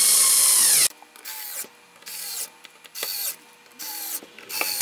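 Cordless electric screwdriver driving 6-32 machine screws down into nylon lock nuts. One long run winds down a little under a second in, then about five short bursts follow as each screw is snugged.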